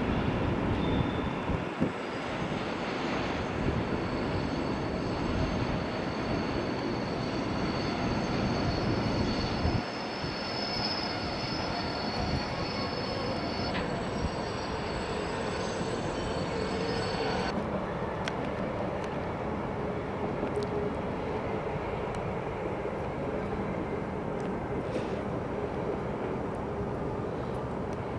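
Electric train running along the line, a steady rumble of wheels on track that eases after about ten seconds. Thin, steady high whining tones sound over it and cut off abruptly about two-thirds of the way in.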